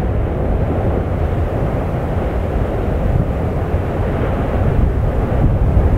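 Steady, deep roar of the erupting Fagradalsfjall crater, a continuous low rumble that swells slightly toward the end.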